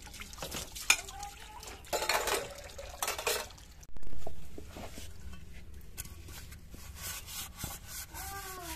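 Aluminium pots, plates and lids being washed by hand in a pan of water: metal dishes clinking against each other, with short splashes of water and a louder clatter just after four seconds in.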